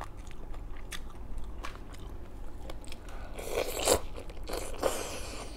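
Chewing and crunching of crispy fried food, with louder crisp crunches about three and a half and five seconds in.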